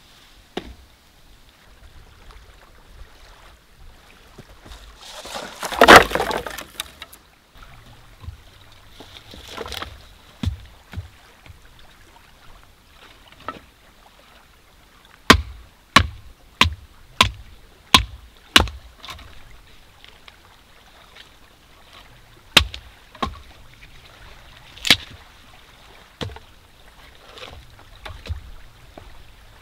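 Hatchet chopping and splitting firewood: a run of about six sharp strikes, a little more than one a second, around the middle, then a few single strikes later. A louder rush of noise lasting about a second comes before them.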